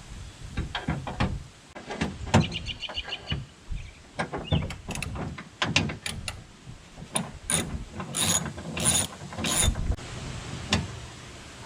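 Socket ratchet on an extension loosening 10mm bolts inside a truck door: quick runs of ratchet clicks among scattered metallic clicks and knocks.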